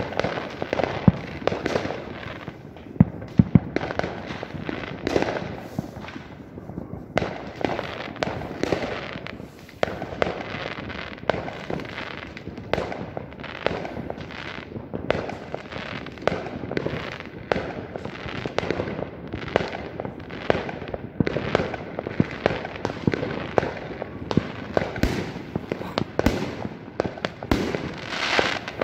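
Many fireworks going off at once: a near-continuous barrage of sharp bangs and crackles, several a second, from rockets and firecrackers.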